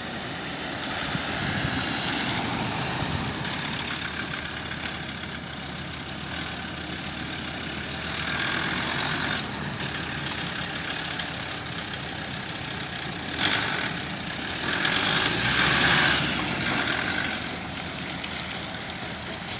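Land Rover Defender 90's engine running at idle, growing louder for a few short stretches.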